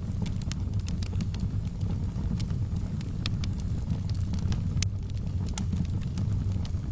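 Wood fire crackling in a fireplace: scattered sharp pops and snaps over a steady low rumble of burning, the loudest pop a little under five seconds in.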